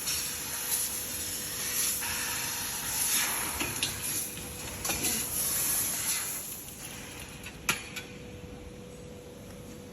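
CNC laser tube-cutting machine at work: a hissing noise with a faint steady hum underneath, louder for the first six seconds, then quieter, with a sharp click near the end.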